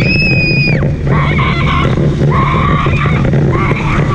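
A child's high scream held for nearly a second at the start, followed by several shorter shrieks and yells, over the steady hum and rumble of a go-kart's motor.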